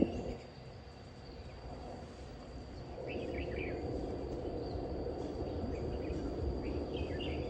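Lakeside outdoor ambience: a steady high insect drone, with birds chirping briefly about three seconds in and again near the end, over a low rumble that grows louder about three seconds in.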